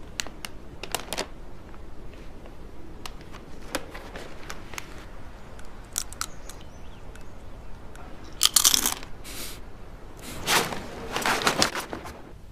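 Crunchy snacks being eaten from a snack bag, with small crackles throughout and loud bursts of bag crinkling and crunching about eight seconds in and again near the end.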